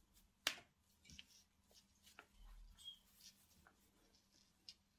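Faint handling sounds of a flat shoelace being threaded through a sneaker's eyelets by gloved hands: soft rustles and scattered small ticks, with one sharper tick about half a second in.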